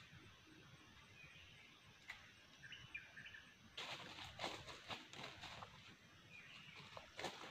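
Rooster scratching and pecking in dry leaf litter, giving quiet crackling rustles that start about four seconds in and come in clusters. A few faint chirps sound just before that.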